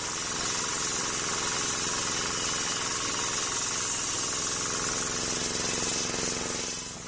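Single-cylinder diesel engine running steadily, driving a homemade sawmill's circular saw blade, with a strong high hiss from the spinning blade over the engine's knocking beat. The sound drops away right at the end.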